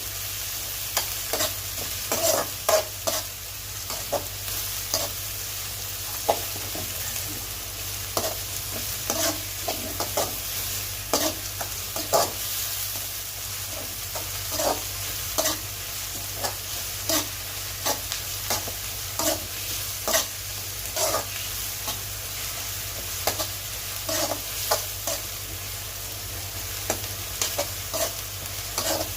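Mutton brain frying in a pan, sizzling steadily, while a spoon scrapes and taps against the pan at irregular intervals as it is stirred.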